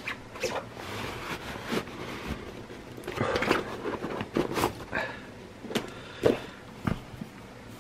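Rustling and crinkling of a coated-fabric roll-top dry bag as it is unrolled and handled, with a few sharp clicks and knocks near the end as a cylindrical cardboard watch box is taken out and handled.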